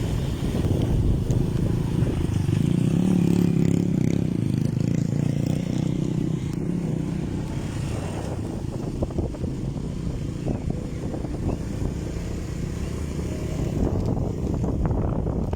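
A fishing boat's motor running steadily with a low hum, with light knocks and rattles from about halfway through.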